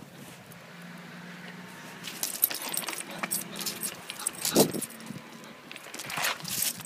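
Light metallic jingling and rattling with scattered clicks, and one louder knock about two-thirds of the way in.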